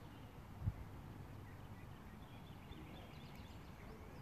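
Quiet outdoor ambience: faint bird chirps in the second half over a low rumble of wind on the microphone, with one soft bump about two-thirds of a second in.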